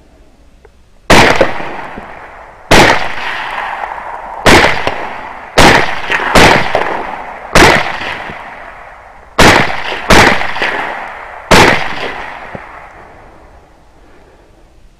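Nine rifle shots fired in quick, uneven succession, some under a second apart, each report echoing and fading slowly.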